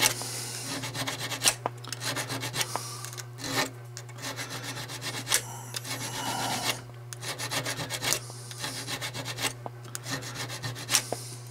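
A coarse hone, a sharpening stone, rubbed back and forth across a small steel revolver part in quick, repeated scraping strokes, honing its face smooth.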